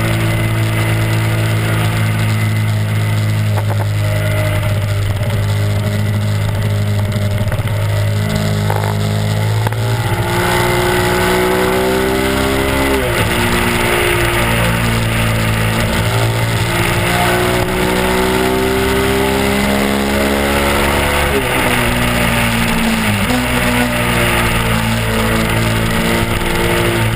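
Honda RC51's 90-degree V-twin engine running at road speed: steady for about ten seconds, then climbing in pitch as the bike accelerates, with sharp drops in pitch a few times, over wind noise.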